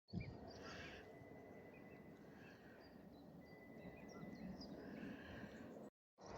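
Faint outdoor marsh ambience: scattered distant small birds chirping over a low wind rumble.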